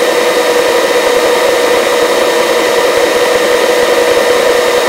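Helicopter's engine and rotor noise in hover, picked up over the crew intercom: a steady, loud drone with a strong humming tone and hiss.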